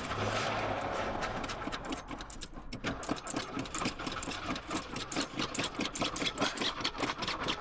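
Large Mercury V8 cranking over on the starter with a fast, even rhythm, fuel having been poured in as a prime for a cold start after long storage; it keeps turning over without settling into a run.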